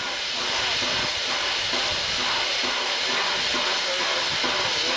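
Steam hissing steadily from the standing Peppercorn A1 Pacific steam locomotive 60163 Tornado, with a faint regular beat about twice a second beneath the hiss.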